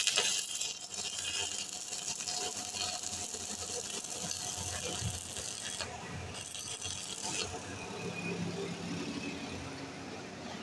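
Stick-welding arc from an E6013 electrode on steel bar, crackling and sizzling steadily. It breaks off for a moment about six seconds in, strikes again, and stops about a second and a half later.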